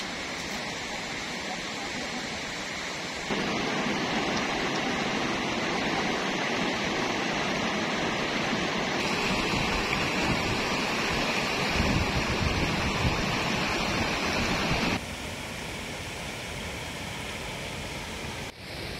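Steady rush of a rocky river's rapids, water pouring over boulders. It jumps abruptly louder about three seconds in and drops back abruptly near the end.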